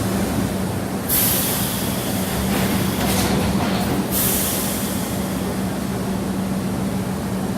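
Subway train running: a steady rumble with a low hum, broken by two sudden loud hisses, about a second in and again about four seconds in.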